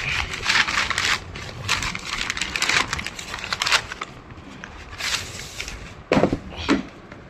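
Shoe packaging being handled and opened: crackling, crinkling rustle for the first few seconds, another burst a second later, then two short knocks near the end.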